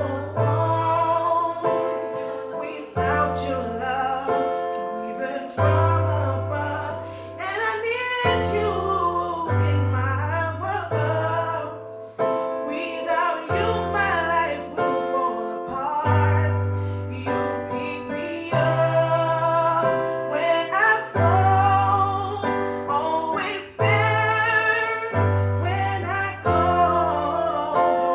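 A woman singing a melody over keyboard accompaniment, with a low bass line that moves to a new note every second or two.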